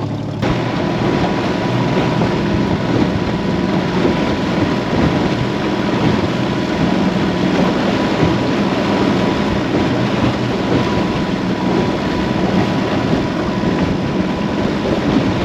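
Outboard motor of a small aluminium boat running steadily at trolling speed, with a thin steady whine over the engine note.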